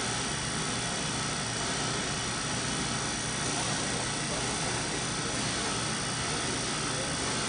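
Steady mechanical hum and hiss of a short path wiped-film molecular distillation system running, with a few faint steady tones and no change in level.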